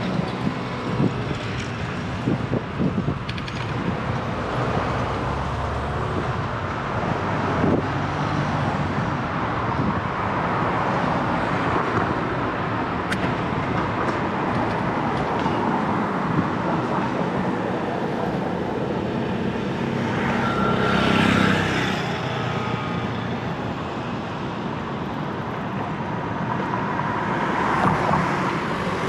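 City street traffic heard while cycling: a steady wash of motor vehicles, with a louder vehicle passing about three-quarters of the way through and another near the end.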